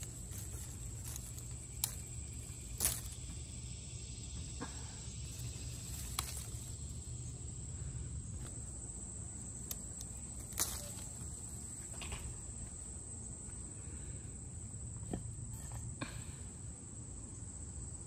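Steady high-pitched insect chorus over a low background rumble, with a few short clicks and rustles of leaves and branches as pears are picked by hand from the tree.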